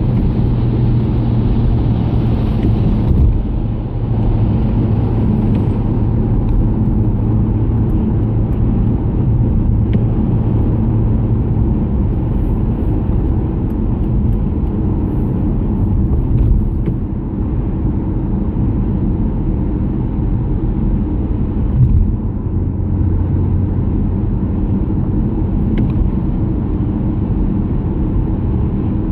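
Steady in-cabin road noise of a car driving at speed on a wet road: a low rumble of engine and tyres with a low drone that fades about ten seconds in and returns for a few seconds later on, and a small bump about 22 seconds in.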